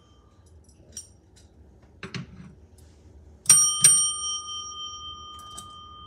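Chrome service desk bell struck twice in quick succession about three and a half seconds in, its clear ring dying away slowly over the next few seconds. Before that, the tail of an earlier ring fades out and there are a couple of light handling knocks.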